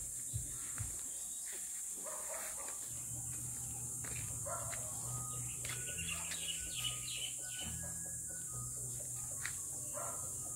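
Footsteps thudding on a concrete floor for about the first second, then birds chirping now and then, over a steady high hiss and a low, wavering hum.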